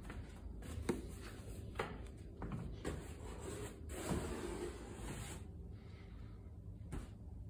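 Interior door with a brass knob being opened: a few sharp latch and handle clicks and knocks, then a stretch of soft rubbing noise.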